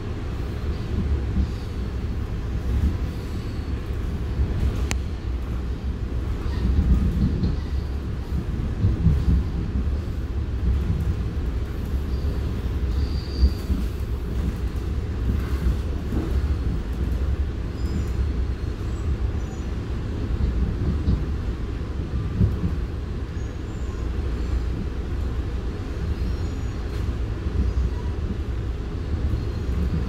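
Steady low rumble of a moving passenger train heard from inside the car: wheels running on the rails, swelling a little now and then.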